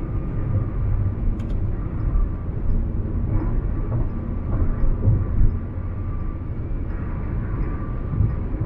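Road and engine noise inside a car's cabin at highway speed: a steady low rumble, with one short click about a second and a half in.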